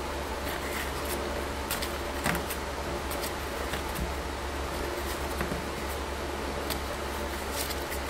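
Small irregular metallic clicks of a hand tool working the bolts of a two-stage hydraulic pump housing as it is tightened down, over a steady low hum.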